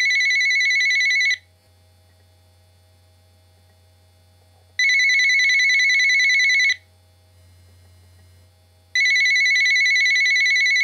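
Telephone ringing with a trilling electronic ring, three rings of about two seconds each with pauses of two to three seconds between them.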